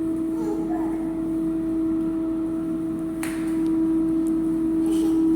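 Nutricook Air Fryer 2 running mid-cook: a steady fan-motor hum with one constant tone, and a single sharp click about three seconds in.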